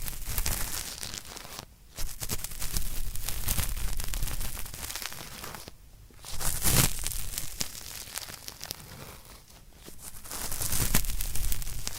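Cotton swab rubbed firmly against hard earwax in an ear, a scratchy crackling scrub in three stretches of a few seconds with short pauses between.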